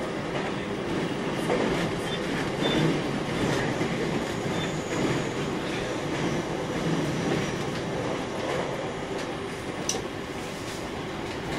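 E721-0 series electric multiple unit running along the track: a steady rumble of wheels on rail with a few faint clicks and a sharper click near the end.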